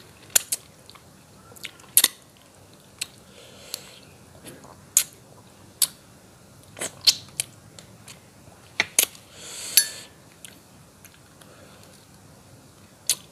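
Close-up mouth sounds of eating fish head in curry by hand: wet lip smacks and sucking clicks scattered through, with a short slurp about ten seconds in.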